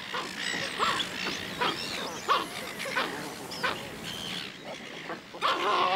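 Australian pelican chicks calling: a string of short squeaky cries, then a louder, longer wavering call near the end.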